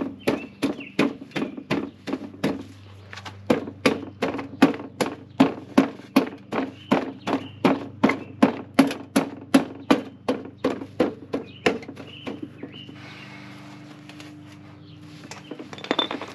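Rapid, evenly spaced knocks, about two and a half a second, that stop about twelve seconds in, followed by a short rush of noise near the end. A steady low hum runs underneath.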